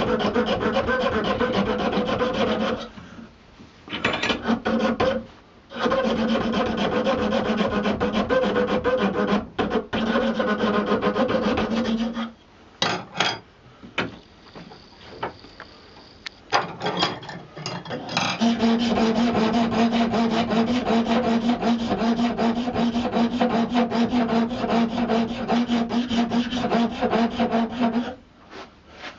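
Hand files rasping on buffalo horn held in a vise: rapid back-and-forth strokes, first with a fine round file inside the nose of the handle, then with a wider file across the curve. Short pauses come a few seconds in, a longer lull with only a few strokes falls in the middle, and then the filing runs on without a break until just before the end.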